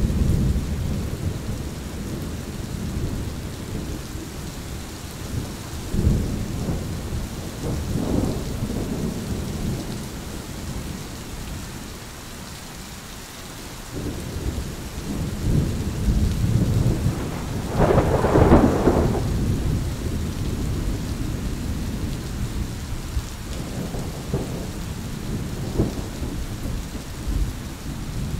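Steady rain with rolling thunder. The rumbles swell and fade, die down for a few seconds near the middle, and the loudest, sharpest peal comes about eighteen seconds in.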